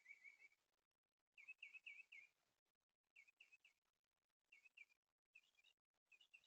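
Faint bird chirping: short, quick runs of high chirps, several runs about a second apart.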